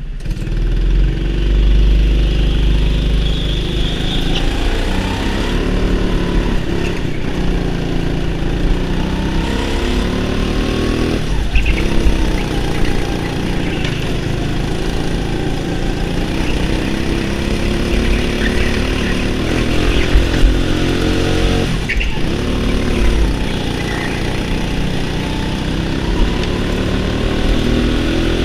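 Go-kart engine heard from a camera mounted on the kart, its pitch repeatedly rising and falling as the kart accelerates and lifts off around the track.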